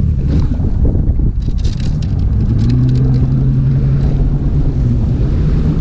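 Bass boat on the water, with wind buffeting the microphone and a dense low rumble. Fishing rods clack and knock in the first couple of seconds as they are laid in and strapped down on the deck. A steady low engine hum comes in about halfway through for a few seconds.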